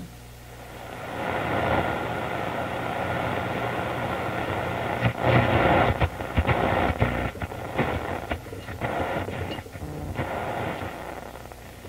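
Canadian General Electric C701 tube console radio hissing with static through its speaker as it is tuned between stations, with crackles from about five to eleven seconds in. A low steady hum lies underneath.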